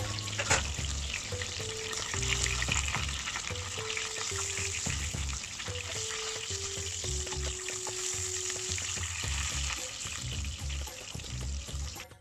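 Zucchini and eggplant slices sizzling and crackling as they shallow-fry in hot oil in a pan, with a sharp click about half a second in. The sizzling cuts off suddenly just before the end.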